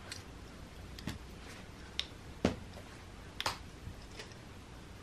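Scattered light taps and clicks, about six in five seconds, the loudest about two and a half seconds in.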